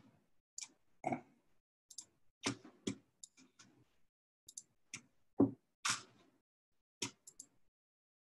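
Irregular light clicks and knocks, about a dozen, some in quick pairs.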